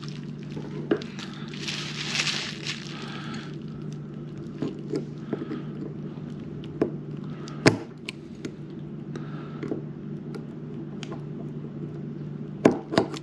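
Needle-nose pliers and a wrist-pin snap ring scraping and clicking against a forged piston as the ring is forced into its groove, with a rustle in the first few seconds and scattered sharp metallic clicks. A steady low hum sits underneath.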